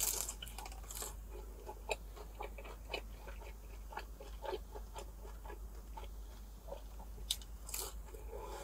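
Biting and chewing a crispy, consommé-dipped birria taco shell: irregular crisp crunches, with a bite at the start and another pair of sharper cracks near the end.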